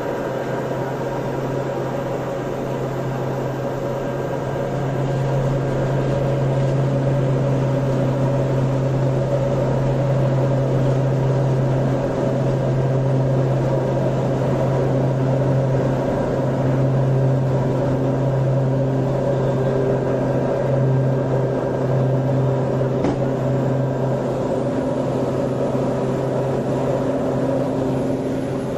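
Turboprop engine and propeller drone heard from inside the cabin: a loud, steady hum with a strong low tone and fainter steady tones above it, growing louder about five seconds in as power comes up on the runway, then holding.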